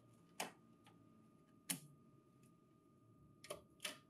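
Light plastic clicks and taps from a Lexmark B2236 printer's paper tray as a paper stack is settled in and the paper guide is pushed against it: four short clicks, the last two close together near the end.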